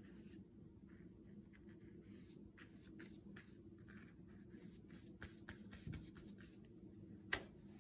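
Faint, soft scratchy strokes of a watercolour paintbrush on paper, repeated many times, with one sharper tap near the end.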